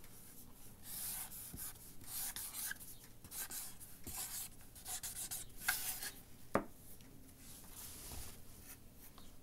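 Writing by hand: a series of short scratching strokes as the word is written out, with a sharp click about six and a half seconds in.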